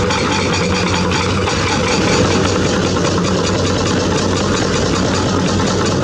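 Diesel engines of hydraulic excavators running steadily as they dig in rock, a constant low drone.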